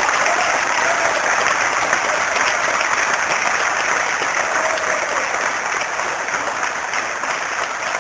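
Audience applauding in a large hall, a steady sustained clapping that eases slightly toward the end.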